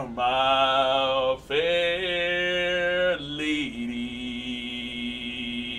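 A man singing a run of long, wordless held notes in a chant-like, operatic style. The notes are separated by a brief break about a second and a half in and by a change of pitch about three seconds in, and the last note is the longest.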